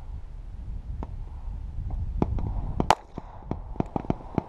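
A Walther P22 .22LR pistol firing a single sharp shot about three seconds in, shooting Federal HV Match ammunition. Several fainter sharp cracks follow near the end.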